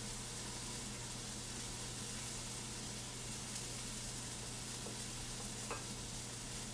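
Steady sizzling hiss of food cooking on the stove, over a low steady hum. A faint click about six seconds in.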